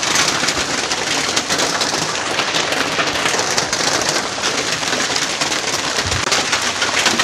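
Heavy rain pouring down, a loud, steady, dense patter of drops. About six seconds in there is a short, soft low thump.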